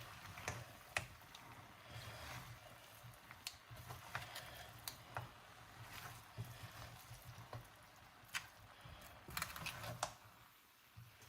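Utensil stirring seafood fried rice in a wok: irregular clinks and scrapes of the spatula against the pan over a faint sizzle, with a low hum underneath.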